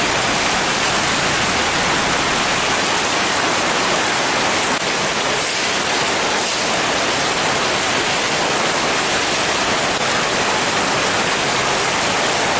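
Heavy rain pouring onto a wet paved street: a dense, steady hiss of downpour.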